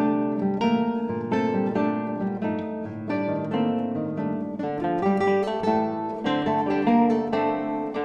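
Three classical guitars playing together: a steady, busy stream of plucked notes and chords.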